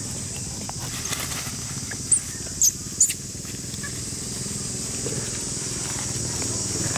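Forest-floor ambience: a steady high-pitched buzz with three short, high chirps about two to three seconds in, and a light rustle of dry leaves as a long-tailed macaque walks across them carrying her infant.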